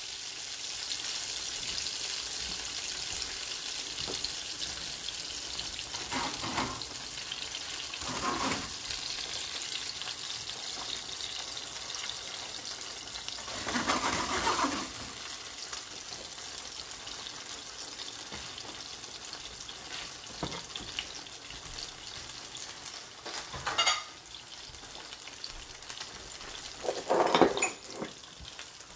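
Boiled potato gnocchi sizzling steadily as they pan-fry in a nonstick frying pan, crisping on the outside. A spatula stirs and turns them about halfway through, and there are a few other brief knocks, the loudest near the end.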